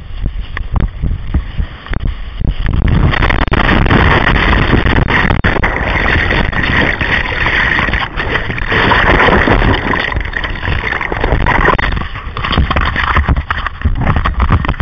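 Ocean whitewater rushing and splashing around a whitewater kayak, heard on a camera mounted on the boat, with wind buffeting the microphone. Scattered splashes give way about three seconds in to a heavy, continuous rush of broken surf, which breaks up again into separate splashes after about twelve seconds.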